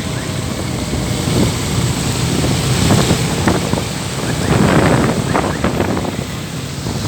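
Wind buffeting the microphone in irregular gusts over the noise of street traffic.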